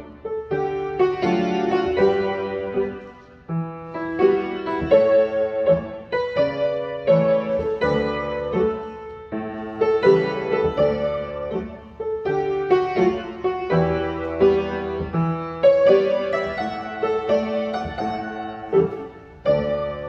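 Upright piano playing ballet-class warm-up music: steady chords in short, regular phrases.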